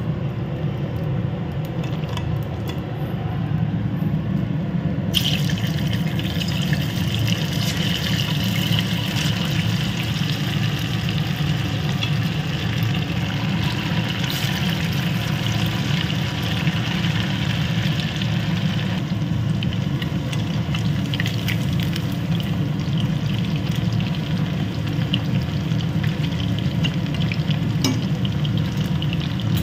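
Chicken pakora pieces deep-frying in hot oil in a cast-iron kadai: the sizzling starts suddenly about five seconds in as the first pieces go into the oil, is strongest for the next quarter minute, then eases a little, over a steady low hum.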